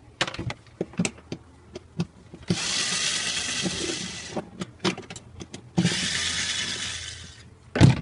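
Cordless drill-driver backing out the screws that hold a refrigerator evaporator. The motor runs twice for about two seconds each, with sharp clicks and knocks of tool and metal before and between the runs.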